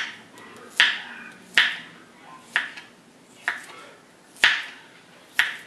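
Kitchen knife slicing garlic cloves and striking a plastic cutting board: single sharp knocks at an even, unhurried pace, about one a second, seven in all.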